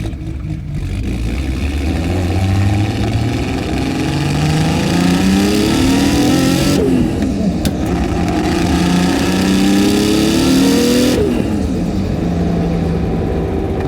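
Nissan Skyline R32 GT-R's HKS 2.8-litre stroker RB26 straight-six with a T04Z turbo accelerating hard from inside the cabin: the engine note rises for about six seconds, breaks for a gear change near seven seconds, climbs again until about eleven seconds, then drops back to a lower, steadier note as the throttle comes off.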